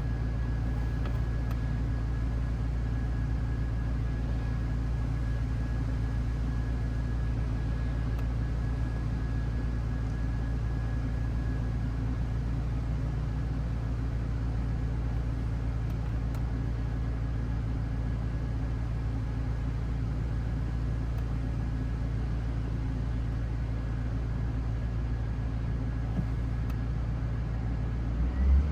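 Car engine idling steadily after a cool start, running fine. A faint high whine fades out partway through, and there is a brief louder bump right at the end.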